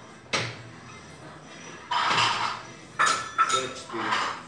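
Barbell plates clinking and rattling on the bar as a light barbell is pressed for bench-press reps: a sharp clink about a third of a second in, then a run of ringing clinks in the second half.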